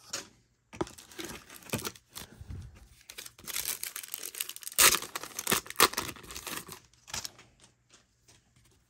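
The wrapper of a 1991 Score baseball card pack being torn open and crinkled by hand: irregular crackling rips, loudest about five seconds in.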